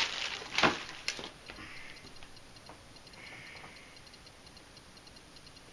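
Plastic bags of model-yacht kit parts rustling and crinkling as they are handled in a cardboard box, with a louder rustle under a second in and a click just after. Then softer crinkling over a faint, regular ticking.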